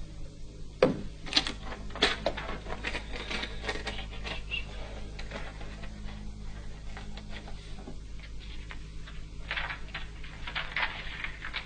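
Pen scratching on paper in quick irregular strokes, in two spells, after a sharp click about a second in.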